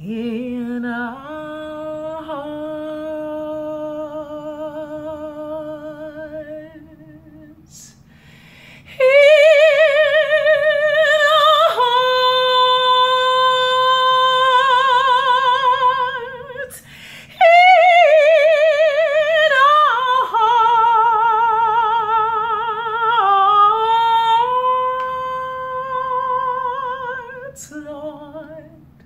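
A woman singing solo in long held notes with wide vibrato, in three phrases; the second and third are higher and louder than the first.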